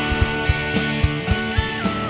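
Background music: a guitar-led instrumental with a steady drum beat and a melody that steps up and down.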